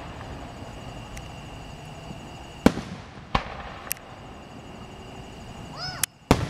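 Aerial firework shells bursting in a display: a loud bang about two and a half seconds in, then a few lighter cracks, and two more bangs close together near the end.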